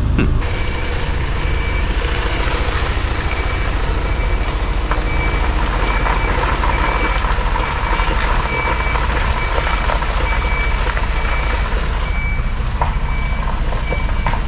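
Mercedes-Benz Actros truck reversing, its back-up alarm beeping at a steady, even pace over the low rumble of the diesel engine, heard from inside the cab.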